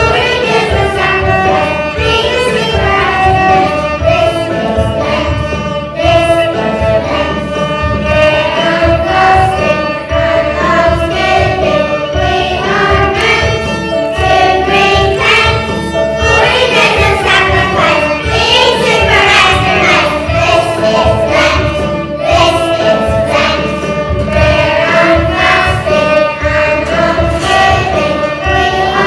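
A class of young children singing a song together in unison, accompanied by violins, over a steady beat.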